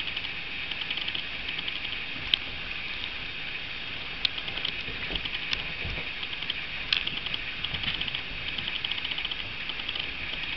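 Dog and puppies playing on carpet tiles: rapid, irregular light clicking and scrabbling, with a few sharper clicks and soft thumps around the middle.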